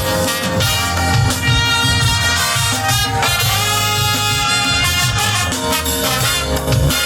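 Brass band playing: sustained brass chords over a low bass line, at a steady level.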